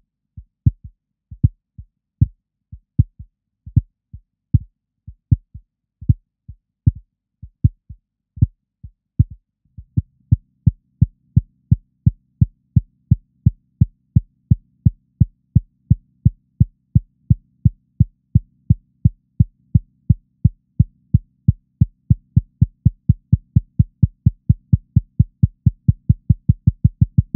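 Soundtrack of low, heartbeat-like thumps, sparse at first. About ten seconds in they become a steady pulse of roughly three a second over a low synth drone, quickening toward the end.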